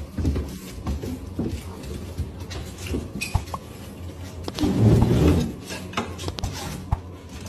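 Raccoons scrabbling and scratching at a hard ledge as they reach for food, with scattered small knocks. A louder low thump comes about five seconds in.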